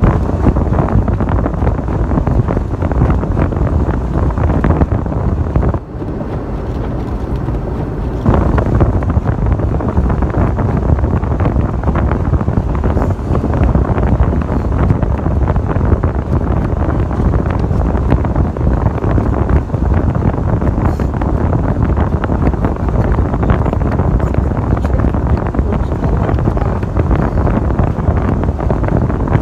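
Wind rushing and buffeting the microphone through the open window of a 1996 Ford Bronco, with the truck's engine and road noise underneath. The rush drops briefly about six seconds in and comes back about two seconds later.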